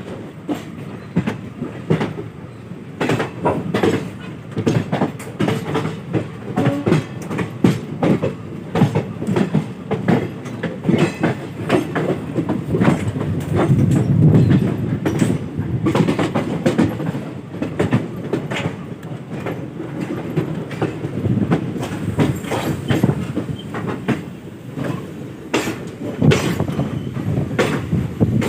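A train running on the track, its wheels clacking irregularly over rail joints over a steady low rumble.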